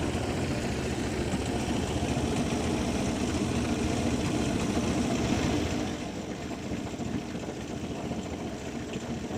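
A fishing boat's engine running steadily, with a dense low drone, easing slightly quieter about six seconds in.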